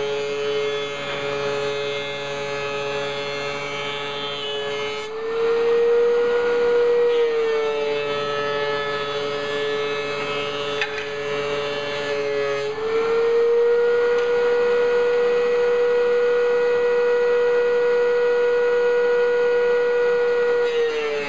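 DeWalt 735 thickness planer running with a steady high whine. It grows louder and a little higher twice, briefly about five seconds in and again from about thirteen seconds on, as boards feed through the cutterhead.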